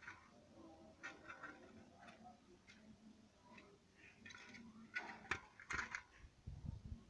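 A hedgehog moving and snuffling about on a hard floor: faint scattered ticks and scuffs, with a cluster of louder clicks about five seconds in and a few low thumps near the end.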